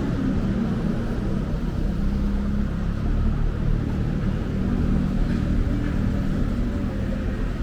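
Street traffic: a steady low rumble from motor vehicles, with a faint engine hum in it.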